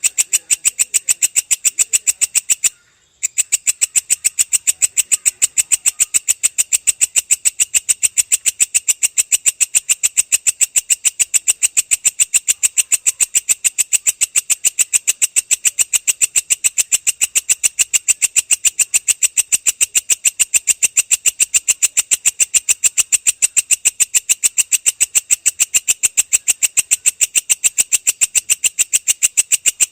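Belalang kecek insect calling: a long, even run of rapid sharp chirping pulses, high-pitched, with one brief break about three seconds in.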